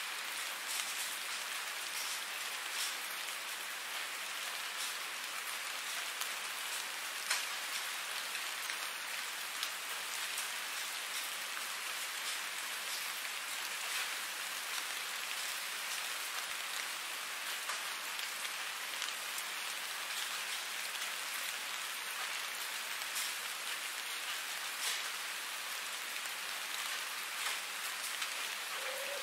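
Steady rain falling, an even hiss with a few scattered louder drop hits.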